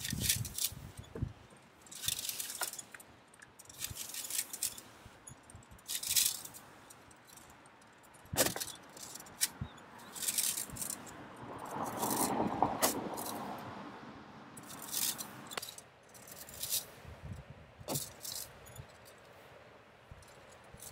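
Metal fan rake with springy wire tines raking cut grass on a lawn: a short scratching, jangling stroke every second or two, with one longer, duller rustle about halfway through.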